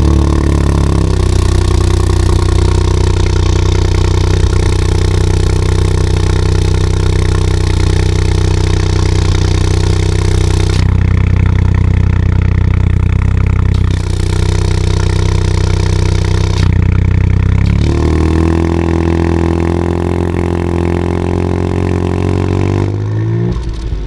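Ford Fiesta ST Mk8's 1.5-litre three-cylinder turbo engine heard at the twin tailpipes, running steadily at about 1800 rpm with the exhaust flap open in normal mode. The pitch rises a little over the last few seconds.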